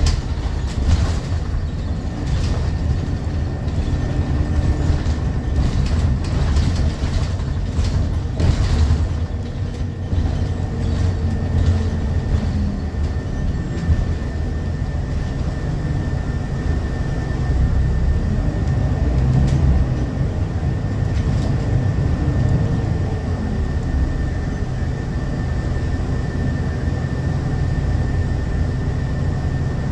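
Scania L94UB city bus heard from inside the saloon while under way: a steady low rumble from the rear engine and drivetrain, with rattles from the body and fittings and a faint steady high whine.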